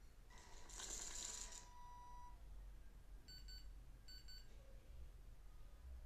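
Small DC motor driving a rack-and-pinion sliding door open: a rattling whir of about a second. This is followed by two short beeps from a piezo buzzer, signalling that the door is open.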